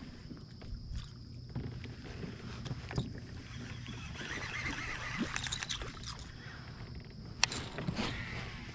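Fishing kayak on the water: a few sharp knocks against the hull and a rush of water about halfway through, over a steady low hum and a thin high whine.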